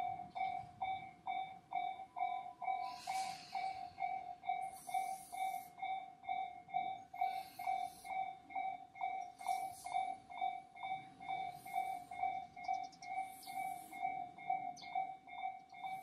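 Japanese railway level-crossing warning bell ringing its steady "kan-kan" alarm, evenly repeating strikes a little over twice a second, signalling that a train is approaching and the barriers are down. Short high hisses come and go behind it.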